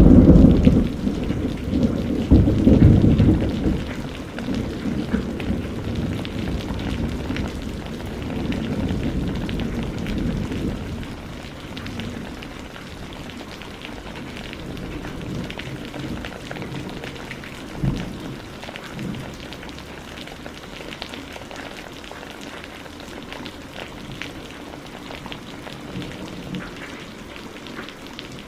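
Steady rain falling, with a roll of thunder that is loudest at the start and rumbles away over about ten seconds. A single short low thud comes about two-thirds of the way in.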